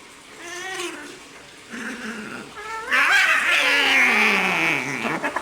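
Two tomcats squaring off: a wavering yowl, then about three seconds in a loud burst of screeching and hissing with a falling yowl as they clash, lasting about two seconds.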